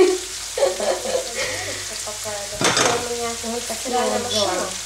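Diced bell pepper and garlic sizzling in oil in a nonstick frying pan, stirred and scraped with a silicone spatula. There is a sharp clatter nearly three seconds in.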